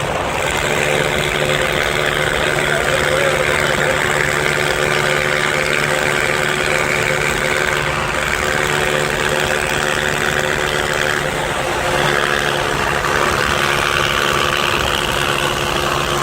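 Small single-cylinder motorcycle engines, KTM 200 and Honda Tornado, running steadily at idle with a continuous, even engine note.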